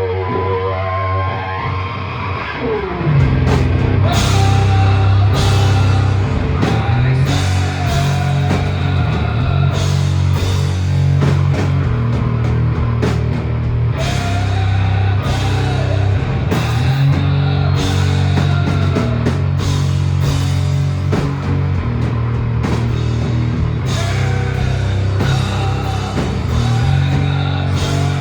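A rock band playing loud live music with distorted electric guitar. The guitar is nearly alone at first, then the drum kit and a heavy bass come in about three seconds in and the full band keeps playing.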